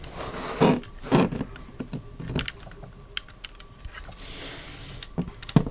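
Plastic clicks of a Transformers Grimlock action figure's jaw and joints being worked open and closed by hand: a scattering of sharp, irregular clicks, with a short rustle about four seconds in.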